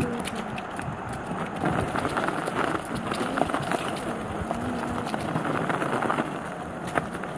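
Skateboard rolling fast down a paved trail, the wheels giving a constant rough rumble broken by irregular clicks and clacks over bumps and leaves.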